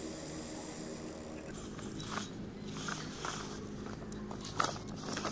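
Electric motors of a LEGO Technic RC off-road car whining steadily as the car drives over rocks. Its plastic wheels and frame knock and clatter several times from about a second and a half in.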